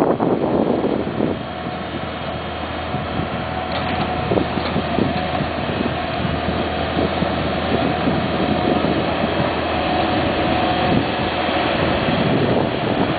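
Engine of a compact motor grader running steadily as the machine drives over loose dirt with its blade down, a low hum with a held higher tone, getting gradually louder as it approaches.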